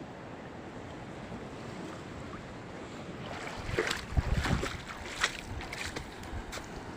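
Sea surf with wind buffeting the microphone. About halfway through comes a few seconds of splashing and crackling water, as a wave washes up on the shore.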